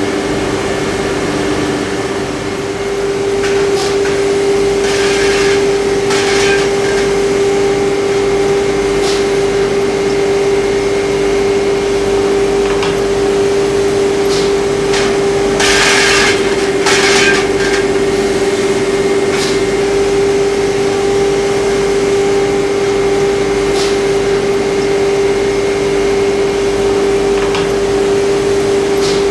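Steady hum and hiss of a shovel factory's paint-line conveyor and machinery, with scattered clanks of steel shovel blades being handled on the conveyor hooks. A few brief, louder noisy bursts, the loudest just over halfway through.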